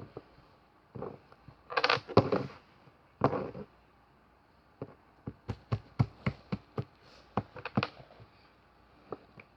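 Small objects being handled on a tabletop: two short bursts of rustling, then a quick run of sharp light taps and clicks.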